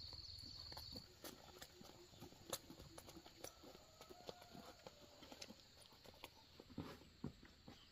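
Near silence, broken by faint scattered taps and clicks.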